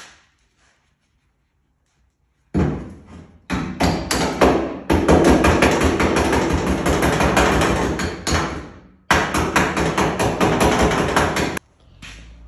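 Rapid hammer blows on the sheet-steel cab floor of a 1986 Ford F-150, several strikes a second. The blows come in loud bouts that begin a couple of seconds in, pause briefly about two thirds of the way through, and stop shortly before the end.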